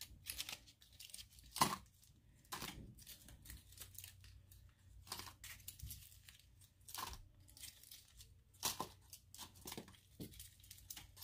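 Aluminium hair-colouring foils crinkling and rustling in short, irregular crackles as they are unfolded and pulled out of dyed hair. The sharpest crackle comes a little under two seconds in.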